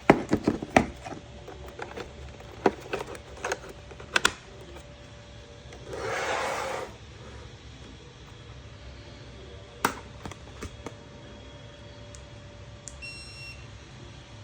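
Sharp clicks and knocks of equipment being handled, a short rustling burst about six seconds in, and one brief electronic beep near the end.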